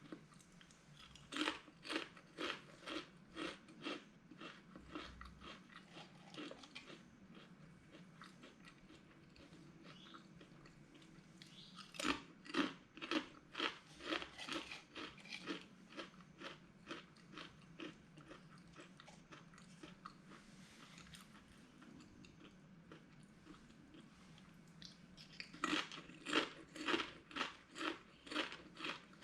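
A person chewing crunchy spicy potato chips close to the microphone: three bouts of rhythmic crunching, about two or three bites a second, with quiet pauses between.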